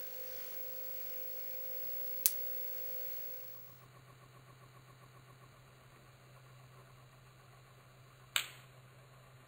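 Two sharp snaps about six seconds apart: a small homemade Leyden jar (water-filled jar lined with aluminium tape) discharging across its wire spark gap.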